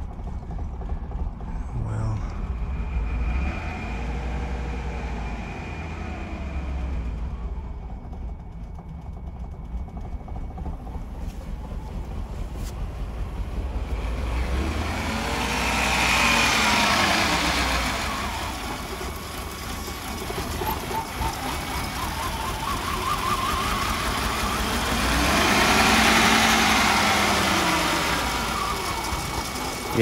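Mercedes-Benz W126 420SEL's 4.2-litre V8 idling unevenly with a misfire, the revs rising and falling three times in an unstable idle. The owner suspects a fuel injector that isn't spraying on the dead cylinder.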